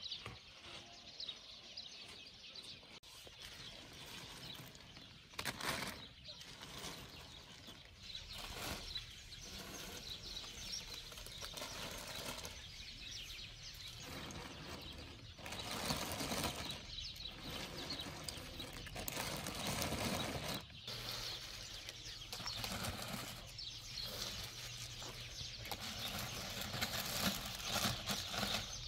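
Irregular rustling and scuffing, with a few sharper knocks and louder busy stretches in the second half.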